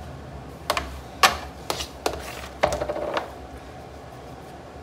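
Several sharp clicks and knocks over about two and a half seconds, the last ones with a short metallic ring: a metal palette knife clinking against a metal cake turntable and board while whipped cream icing is spread.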